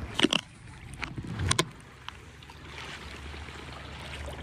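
Kayak paddling on open water. A few sharp paddle knocks and splashes come in the first second and a half, then a steady wash of water.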